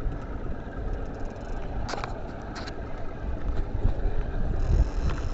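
Low, steady rumble of a small fishing boat trolling through rough water, with a couple of short sharp clicks about two seconds in.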